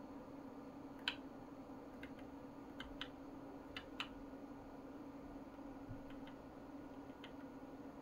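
Faint, scattered clicks of a computer keyboard or mouse being used to step through BIOS menu settings, about ten in all with the loudest about a second in, over a steady low hum.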